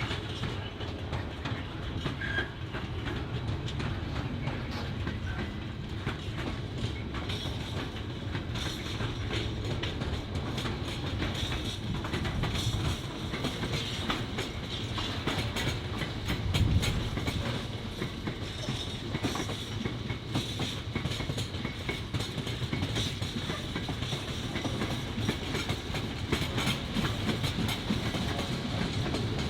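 Freight train passing through a station, its wagon wheels clattering over rail joints over a steady low rumble.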